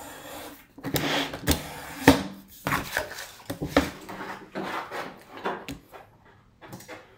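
Paper shoe pattern being cut with a craft knife on a cutting mat and the cut pieces pulled apart and handled: a run of scrapes, rustles and light knocks that grows quieter near the end.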